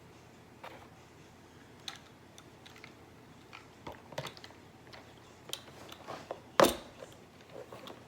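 Scattered light plastic clicks and taps from handling a small handheld sewing machine, with one louder knock about six and a half seconds in. The machine's motor is not running.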